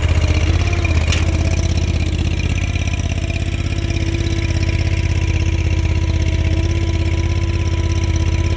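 Honda-powered stand-on skid steer's engine running steadily as the machine works, with one short knock about a second in.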